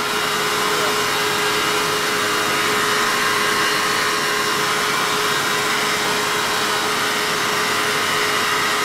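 Steady machine hum and hiss of running shop machinery, with one steady mid-pitched tone held throughout.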